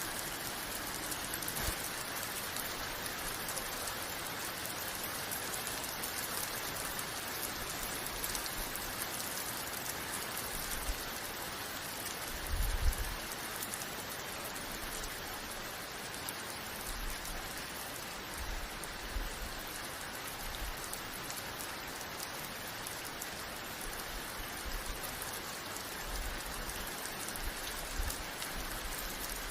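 Steady rain falling and pattering on a surface, with a brief low thump about halfway through and a few fainter low bumps later.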